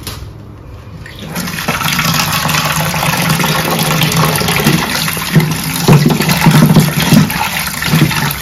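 Tap water running and splashing into a steel bowl of raw chicken pieces in a stainless steel sink as hands rinse the meat; the flow comes on about a second in.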